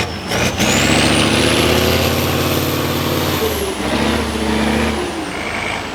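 Tatra 6x6 truck's diesel engine revving hard under load, with a high whine that climbs with the revs. It eases off about three and a half seconds in, then picks up again briefly. A few sharp knocks near the start.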